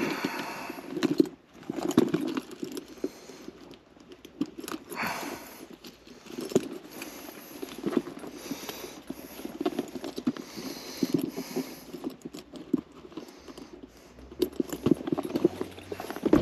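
Hands working on wiring: irregular clicks, taps and rustling as wires are handled and taped up.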